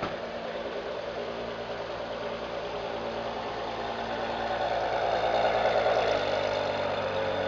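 Ferrari 599 GTO's V12 engine idling steadily, getting somewhat louder in the second half.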